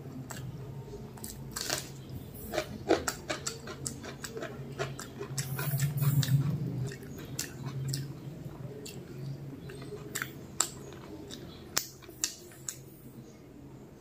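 Close-miked eating sounds: fingers working mutton biryani rice on a banana leaf and wet mouth smacks of chewing, heard as a scattered run of sharp clicks and crackles.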